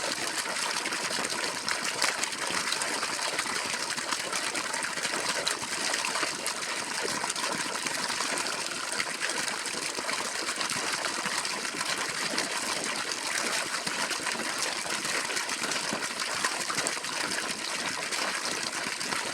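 Water gushing steadily from a borewell pump's outlet pipe, an even rushing splash.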